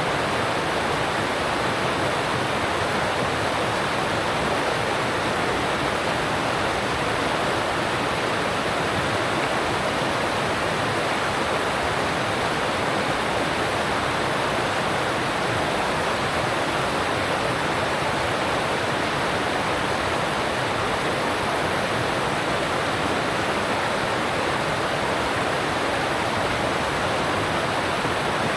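Alpine mountain stream rushing steadily over rocks, a continuous even rush of water.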